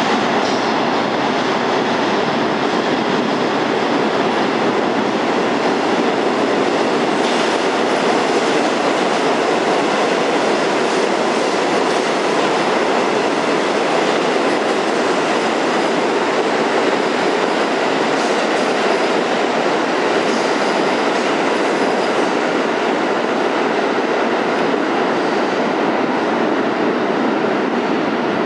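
R46 A express subway train running through the station on the express track without stopping: a steady, loud rumble and rattle of steel wheels on the rails, with a few clacks along the way.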